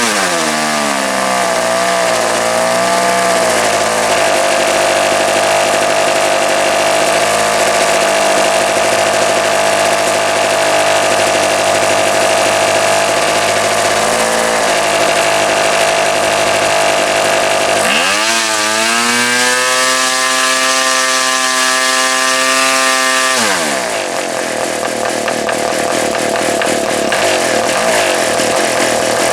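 A Progress AeroWorks PAW .29 model diesel engine running on the bench, swinging an 11-inch propeller through a muffler. Its speed drops and wavers near the start, holds steady, picks up sharply about two-thirds of the way through, then falls away again and runs rougher near the end; it is possibly still running a bit rich.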